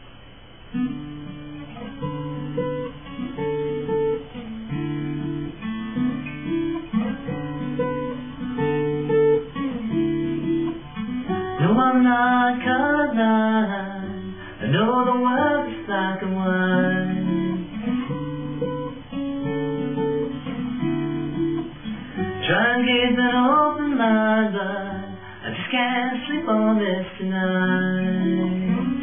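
Solo acoustic guitar playing a song's intro in a steady, regular run of picked notes, starting just under a second in. A singing voice joins over the guitar at about 12 seconds and again at about 22 seconds.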